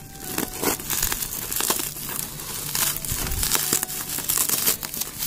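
Bubble-wrap and taped plastic parcel packaging crinkling and tearing as it is slit with a box cutter and pulled open by hand: a dense rustle full of sharp crackles.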